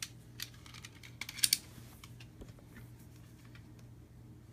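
Plastic wrapping on a pack of game cards crinkling and crackling as it is handled and opened: scattered light clicks, with a louder cluster of crinkles about a second and a half in.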